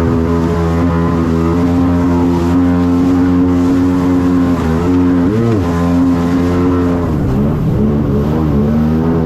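Jet ski engine running steadily under way, with its pitch dropping and climbing back twice, about five seconds in and again near the end, as the throttle eases off and comes back on.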